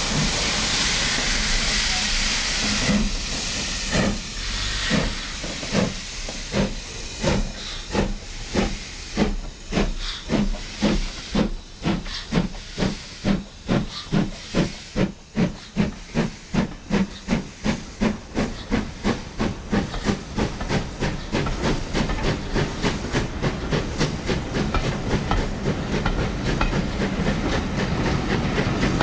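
BR Standard Class 4 2-6-0 steam locomotive No. 76079 starting away with its train: a steady hiss of steam, then from about three seconds in the chuffs of its exhaust, slow at first and quickening to about three a second. In the later part the beats blur into the steady rolling of the coaches passing.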